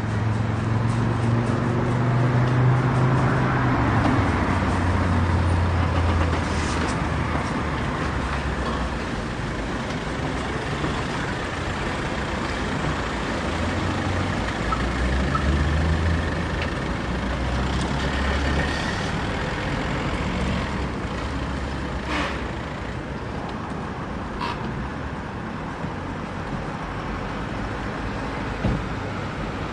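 Car park ambience: vehicle engines running and moving close by, their low rumble strongest in the first several seconds and again about halfway through, over a steady bed of city traffic noise, with a few short sharp knocks.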